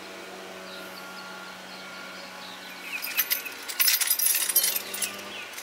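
A bunch of keys jangling and clinking for about two seconds past the middle, over a steady low hum that stops near the end.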